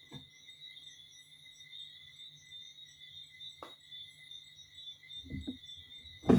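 Steady, high-pitched chirring of insects such as crickets, with a faint low hum beneath and a single click about three and a half seconds in.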